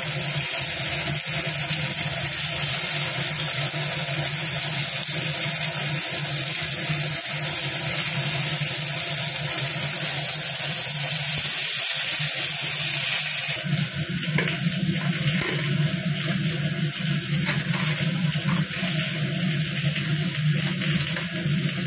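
Indian mackerel frying in oil in a tawa pan: a steady, dense sizzle. About 13 seconds in the sound changes abruptly; the high hiss drops and a lower hum with a few light clicks takes over.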